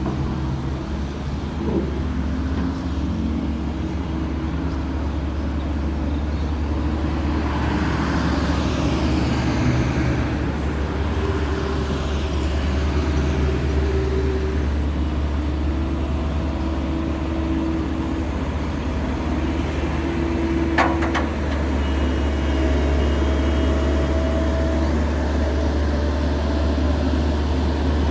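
Heavy diesel road-construction machinery running steadily with a deep constant hum. A vehicle-like whoosh swells and falls about eight to twelve seconds in, and there is a short sharp click a little past twenty seconds.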